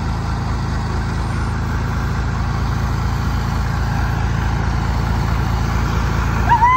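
Front-loader tractor engine running steadily. Near the end, a short high-pitched call rises, holds and drops away.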